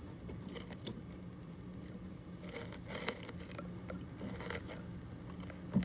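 Plastic alignment tool turning an IQ-balance trimmer potentiometer on a QCX Mini circuit board: light scraping with a few small clicks, over a steady low hum.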